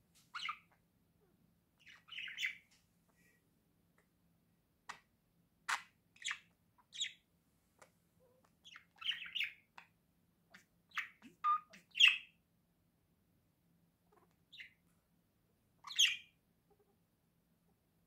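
Pet budgerigars giving short chirps and squawks, single calls and quick clusters spaced a second or two apart with quiet pauses between, the loudest about twelve and sixteen seconds in.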